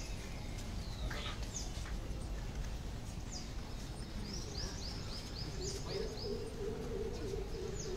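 Small birds chirping with short falling calls, including a quick run of about six just past the middle, over steady outdoor background noise. A low steady drone comes in a little past halfway.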